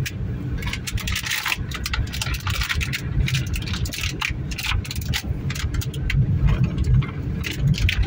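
Car driving on a rough dirt road, heard from inside the cabin: a steady low engine and road rumble with frequent irregular clattering knocks and rattles as it goes over the uneven surface.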